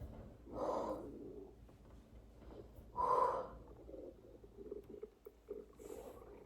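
Stomach gurgling: two short gurgles, about half a second in and about three seconds in, the second the louder with a brief squeaky tone, and a fainter one near the end.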